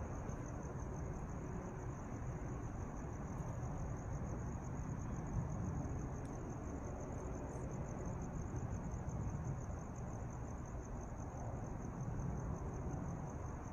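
Crickets chirping in a steady, high-pitched trill over a low, even background rumble.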